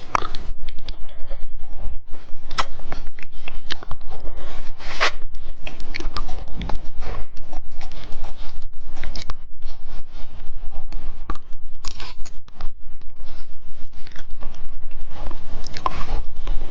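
Close-miked biting and chewing of a hard mushroom-shaped candy: a dense run of crunching clicks and crackles as the teeth work through it. The candy is hard to bite.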